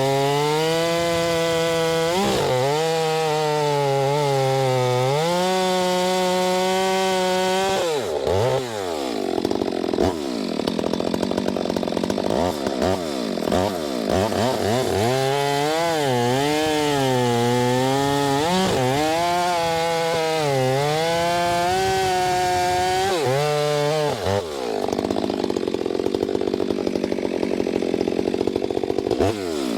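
Stihl MS 462 C two-stroke chainsaw running at high revs while bucking a hickory log, its engine pitch sagging under load in the cut and picking back up again and again. The engine pitch falls away briefly about eight seconds in and again near the end.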